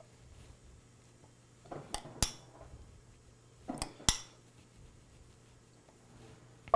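Spoon clinking and scraping against a bowl of barbecue sauce while spooning the sauce over chicken: two short bursts, each ending in a couple of sharp clinks, about two seconds in and again about four seconds in.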